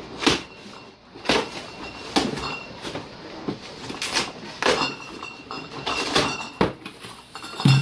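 A box being opened and unpacked by hand: a string of separate sliding scrapes and knocks, about ten in all.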